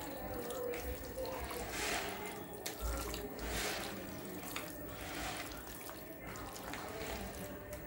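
Water running from a tap into a sink, splashing unevenly.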